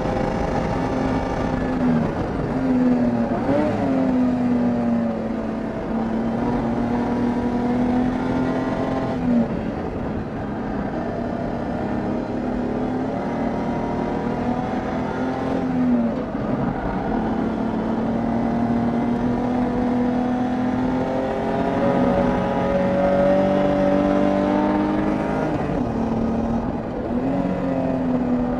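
BMW 325is SpecE30 race car's 2.5-litre straight-six engine running hard at high revs. Its note holds steady, then dips and climbs back up several times: about two, four, ten, sixteen and twenty-seven seconds in.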